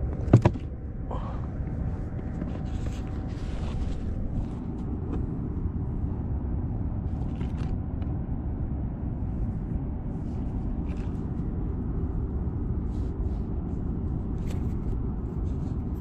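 Steady low rumble of wind buffeting a kayak-mounted action camera's microphone over open water, with a sharp knock about half a second in and a few faint taps later.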